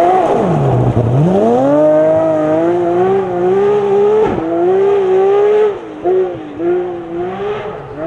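Rally car engine on a gravel stage: revs drop steeply off the throttle into a corner, then climb as it accelerates hard away, with a quick gear change about four seconds in. The engine note fades and falls away from about six seconds in as the car drives off.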